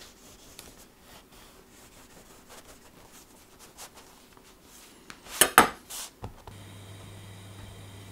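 Knife sawing through a round of Irish soda bread on a wooden board, soft scratchy strokes, then a short loud clatter of the knife on the board about five and a half seconds in. A steady low hum with a faint hiss starts about a second later.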